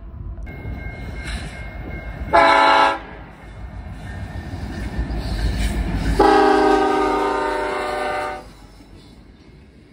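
Air horn of a CN SD70M-2 diesel locomotive: a short blast, then about three seconds later a long blast, the closing short-long of the grade-crossing signal. Under it is the rumble of the locomotives and freight cars passing close by, building up to the long blast.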